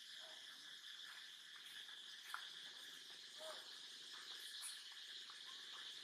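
Faint, steady, high insect chorus in the forest, with a few brief faint chirps and a single click about two seconds in.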